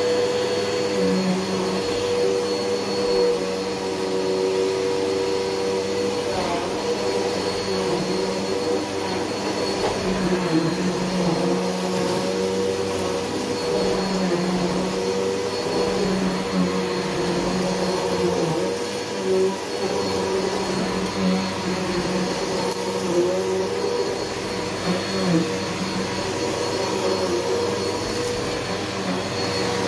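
Bissell PowerGlide Ultra vacuum cleaner running on carpet, a steady motor hum whose pitch dips briefly every few seconds as it is worked across the carpet.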